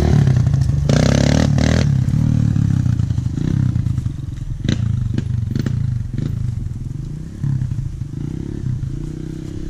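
Dirt bike engine running close by, with a brief louder burst about a second in and a few sharp clacks around the middle.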